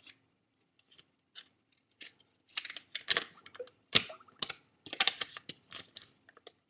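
A folded paper banknote crinkling and crackling as it is handled, in a run of sharp clicks that is sparse at first and grows busier and louder from about two and a half seconds in.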